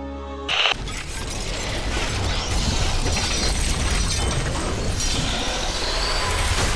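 Cinematic logo-reveal sound design: a sudden loud hit about half a second in, then a dense mechanical texture of clanking and ratcheting over music.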